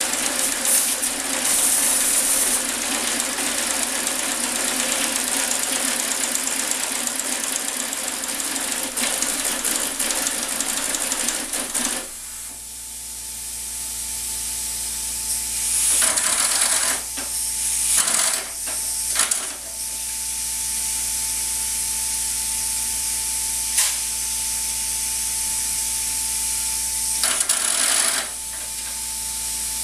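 Working model Marion 91 steam shovel running: a continuous hiss with mechanical chatter for about the first twelve seconds. It then settles to a quieter steady whine, broken by several short loud hisses as the control levers are worked through the digging sequence.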